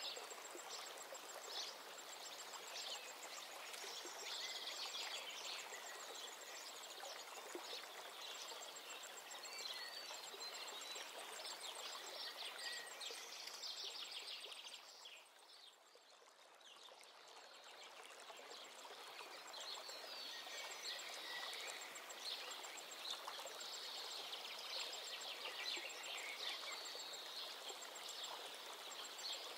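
Oil sizzling and crackling around seekh kebabs frying on skewers in a pan, dying down for a moment about halfway through, then picking up again.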